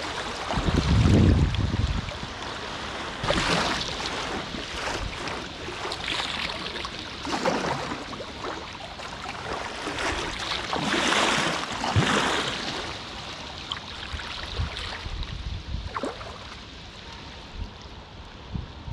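River water in flood rushing and splashing around a packraft, with irregular louder splashes every couple of seconds. A low rumble about a second in is the loudest moment.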